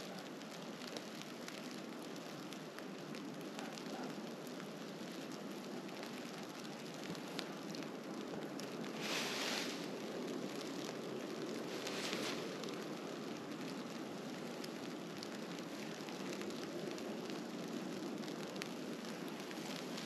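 Steady crackling hiss of a snowstorm, with two brief louder, higher rushes about nine and twelve seconds in.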